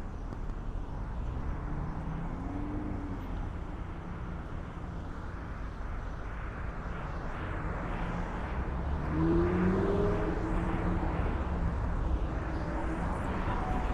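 City street traffic: a steady rumble of passing vehicles. About nine seconds in, an engine rises in pitch and gets louder as a vehicle accelerates.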